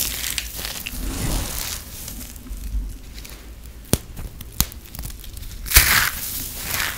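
Dry, crispy shavings of recycled soap crunching and rustling as hands squeeze and crumble them. Two sharp clicks come about four seconds in, half a second apart, and a loud burst of crunching comes near the end.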